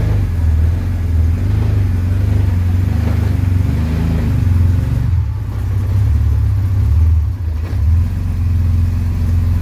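1938 SS Jaguar 3½ Litre's straight-six engine running, a low drone that swells and eases.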